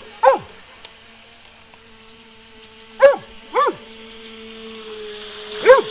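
A dog barking, four short barks: one near the start, a pair about half a second apart around three seconds in, and one near the end. Under the barks runs a faint steady whine from the radio-controlled boat's electric motors.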